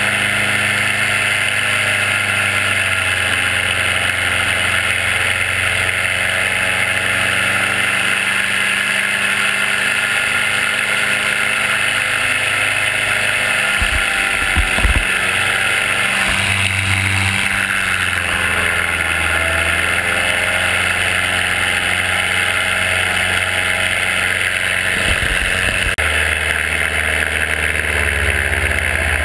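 Paramotor engine and propeller running steadily in flight, the engine note rising and falling slightly a few times with the throttle. A few low thumps sound about halfway through.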